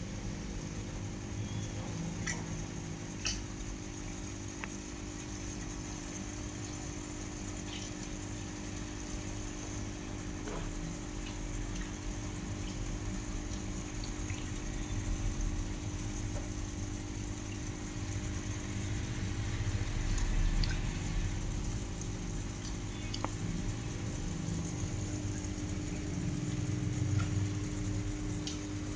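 Submersible internal aquarium filter running: a steady motor hum with water bubbling and trickling from its outflow, over a low rumble and occasional faint ticks.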